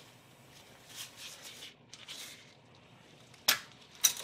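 Cable-type hose clamp pliers (Performance Tool W80656) being handled: soft rustling of the gloved hands and cable, then one sharp metal click about three and a half seconds in and a few lighter clicks near the end.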